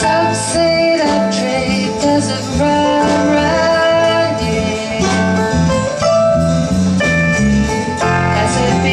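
Live acoustic folk music: a woman singing to her own strummed acoustic guitar, with a second plucked string instrument playing along.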